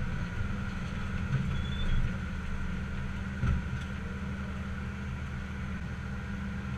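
Tractor engine running steadily under way, heard from inside the cab as a low drone with a faint steady whine above it. Two short knocks about two and three and a half seconds in.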